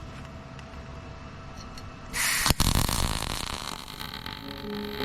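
A loud, sudden hiss starts about two seconds in, breaks off for an instant, then carries on and slowly fades over a steady shop background.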